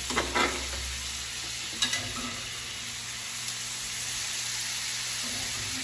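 Filet mignon steaks frying in butter in a cast-iron skillet on low heat, a steady sizzle. A few light clicks of metal tongs against the steaks and pan come near the start and about two seconds in.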